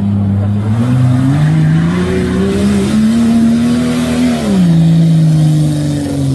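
An off-road 4x4 SUV engine revving under load as it drives across a steep slope. The pitch climbs over the first few seconds, holds, drops about halfway through, then rises again near the end.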